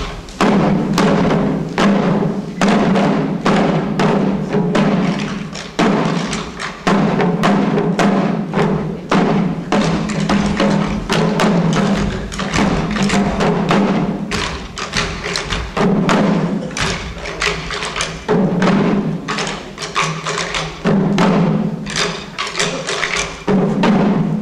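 Shishi odori deer dancers beating the drums slung on their chests, many drums struck together in a quick, driving rhythm.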